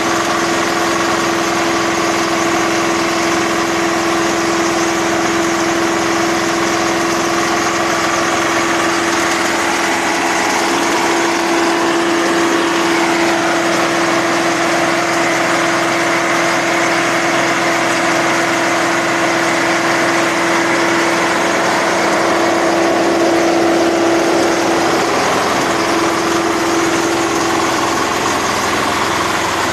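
Small single-cylinder diesel engine running steadily, belt-driving a grass chopper, with a steady whine over the engine noise.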